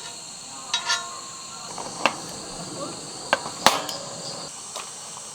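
A handful of sharp knocks or clicks at irregular intervals, the loudest a little past the middle, over a steady high insect drone.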